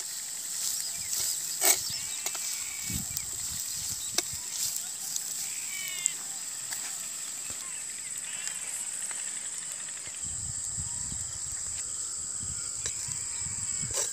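A ladle scraping and knocking against a clay pot as a goat blood fry is stirred over a wood fire, a few separate clicks. A steady high-pitched hum runs underneath, with a few short chirps.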